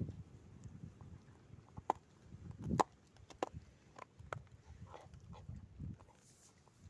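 A dog chewing food on the ground: irregular small sharp cracks and clicks of crunching, between soft wet smacks of its mouth.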